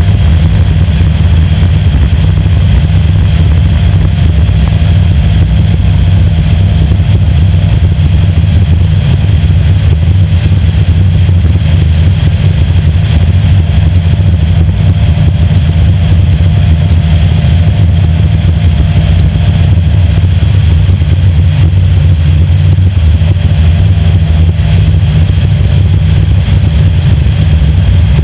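Tunnel-hull race boat's engine running hard at steady speed, heard close up from on deck: a loud, unbroken low drone that holds level throughout.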